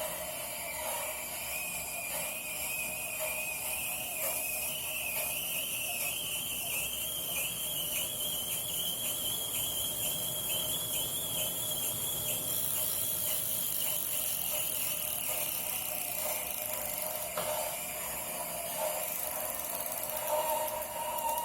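Tacx Flux direct-drive bike trainer giving off a high-pitched squeal, an abnormal noise from the unit, with a lower whine beneath it. The squeal climbs in pitch over the first half with a regular wavering dip, holds, then fades out, while the lower whine carries on.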